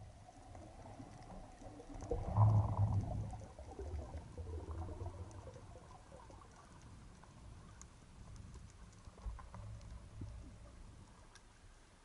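Underwater noise picked up by an action camera in its housing during a breath-hold dive: low rumbling water movement, loudest two to three seconds in and then easing off, with faint scattered clicks.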